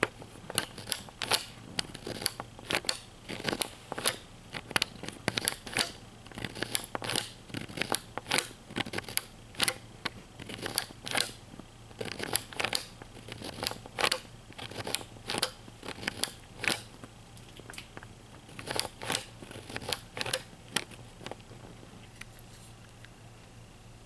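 Surprise-egg toys and their wrapping handled and opened by hand: an irregular run of sharp clicks, snaps and crinkles, one to three a second, stopping about three seconds before the end.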